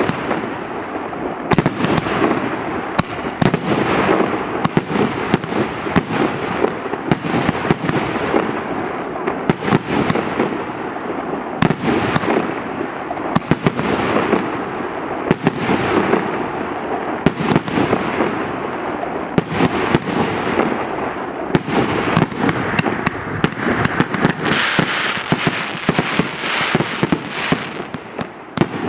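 A 1.5-inch, 88-shot firework cake firing shot after shot: sharp reports every second or so over a continuous noisy wash of bursting shells.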